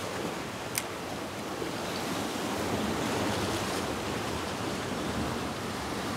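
Sea surf washing steadily against a rocky shoreline, with one brief click about a second in.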